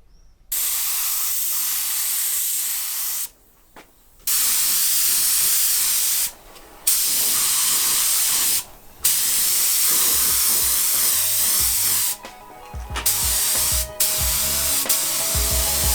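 Paint spraying: a loud, steady hiss that comes in repeated bursts of one to three seconds, with short breaks between them, as the fuel filler neck is refinished.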